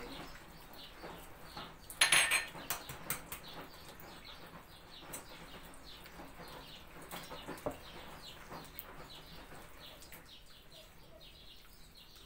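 Hands squeezing and mashing a soft, wet butter, oil and yogurt dough in a bowl, with small squishing and clicking sounds and one loud knock against the bowl about two seconds in.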